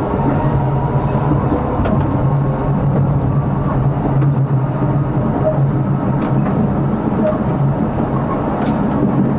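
Tram running along street track, heard from inside the driver's cab: a steady low hum over the rumble of wheels on rails, with a few faint ticks.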